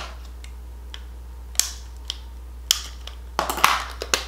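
Scattered sharp plastic clicks and taps, then a short cluster of clicks and rustling near the end, as a Milani highlighter compact in a clear plastic case is handled and opened.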